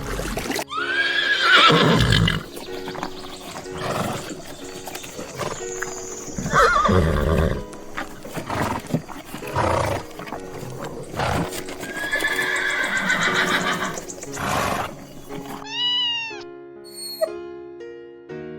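Horses whinnying three times, each a long call that rises and falls, over background music.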